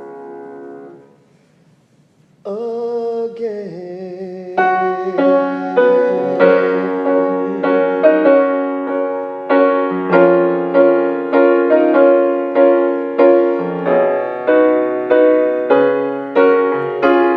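Keyboard playing: a held chord dies away about a second in, and after a short gap the keyboard comes back in, first with a wavering sustained chord, then with chords struck in a steady rhythm about twice a second.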